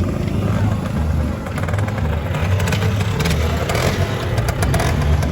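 Two-stroke Lambretta scooter engines running and revving as scooters ride off.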